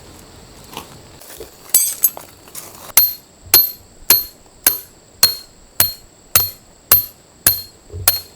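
Hammer striking metal in a steady run of about ten blows, roughly two a second, each with a short metallic ring, after a few lighter knocks at the start.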